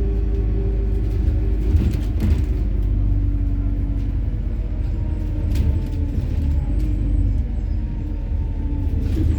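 MAZ-103 city bus running on methane, heard from inside the cabin while driving: a steady low engine and road rumble with an even hum, and a few short rattling clicks.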